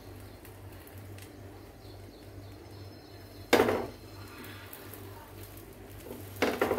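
Ghee-smeared sandwich triangles set down on a hot iron tawa: one sudden loud contact about halfway through that dies away within half a second, then a few quick short sounds near the end as the next piece goes on, over a low steady hum.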